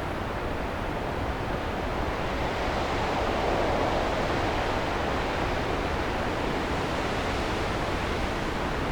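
Winter storm wind blowing in a steady rush, swelling a little about three to four seconds in.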